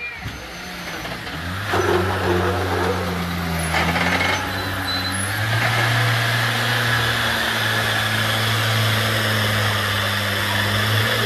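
Car engine running hard with a steady drone from about two seconds in, stepping up slightly in pitch about halfway through.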